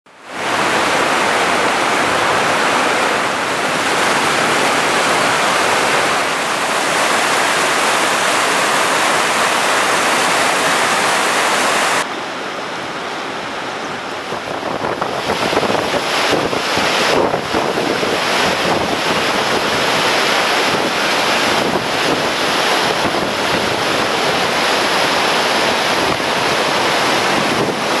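River rapid: whitewater rushing over and around boulders, a steady dense rush. About twelve seconds in it drops suddenly to a quieter, duller rush, then grows louder and more uneven again.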